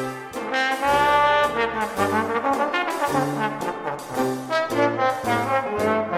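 Music led by brass instruments, playing a melody over a low bass line that moves from note to note.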